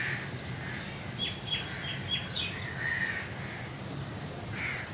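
Birds calling in the background: crows cawing a few times, with a small bird giving four quick high chirps about a second in.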